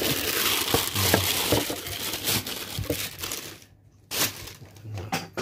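Packing material crinkling and rustling as it is handled and pulled out of a cardboard box, stopping briefly about three and a half seconds in before starting again.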